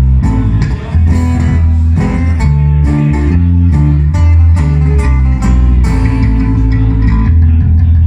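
Live band playing an instrumental passage: two acoustic guitars strumming chords over a prominent electric bass line, with drum hits keeping a steady beat.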